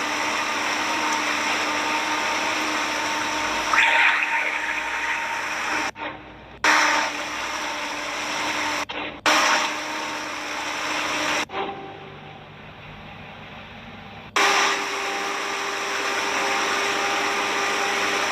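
Steady motor drone with a rush of noise, as of a boat's engine running on board. The sound cuts out sharply three times, briefly twice and then for about three seconds, before returning.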